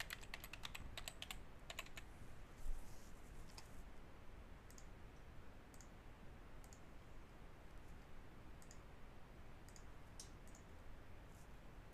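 Faint typing on a computer keyboard, a quick run of keystrokes for about the first two seconds. After that come single sharp clicks spaced a second or so apart.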